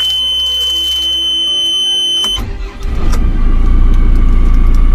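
A steady high-pitched warning tone sounds in the cab of a JCB 4CX backhoe loader, then cuts off as the diesel engine is cranked. The engine catches about three seconds in and settles into a steady idle at around 860 rpm.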